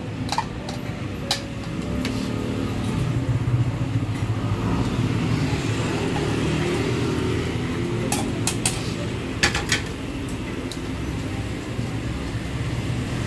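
Street-stall noise: a steady rumble of road traffic, with sharp metal clinks of the noodle strainer and utensils against the pots and bowl, two near the start and a cluster about eight to ten seconds in.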